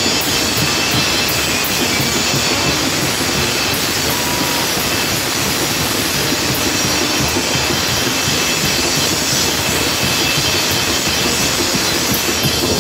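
Brass band with bass drums playing loudly in a packed crowd, heard as a dense wash of sound without a clear beat.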